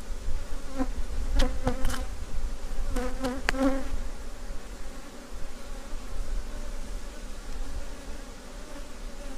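Honeybees buzzing around an open hive, several flying close past with short buzzes in the first four seconds. A few light knocks as the wooden frame of capped queen cells is handled.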